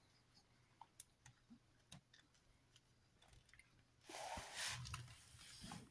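Near silence with faint scattered small clicks, then about four seconds in a soft rustling hiss lasting under two seconds.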